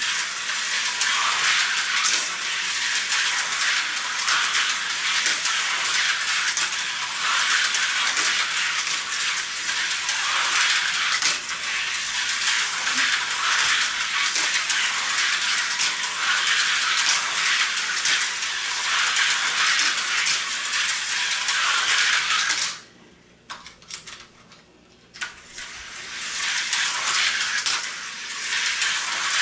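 An HO-scale Tyco slot car runs laps on its plastic track with a steady high buzzing rattle from its small motor and its pickup running in the slot. The sound cuts out for about three seconds near the end, then picks up again.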